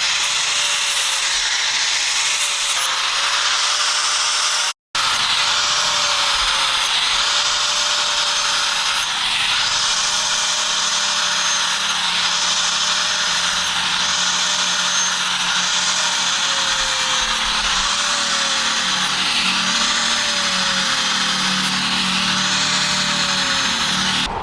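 Electric grinder grinding steel under steady load, a continuous hiss with a running tone that wavers slightly as the work is pressed and moved. It breaks off for an instant about five seconds in.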